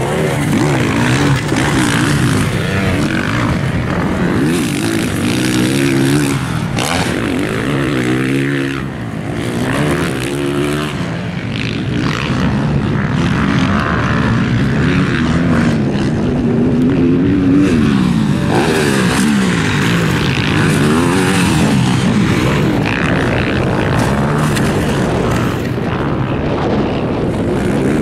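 Several motocross dirt bike engines racing on the track, revving up and dropping back again and again as they shift and throttle, their sounds overlapping.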